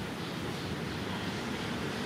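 Steady background noise: an even low rumble with hiss, with no distinct events.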